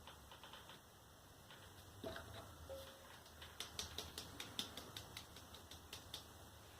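Faint light clicks and taps, a few a second through the second half, over a low steady hum: small containers being handled while borax is measured out.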